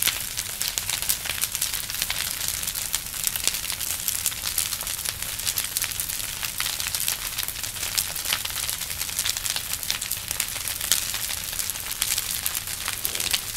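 Large bonfire crackling and popping steadily: a constant rush of flame with a dense stream of small sharp snaps throughout.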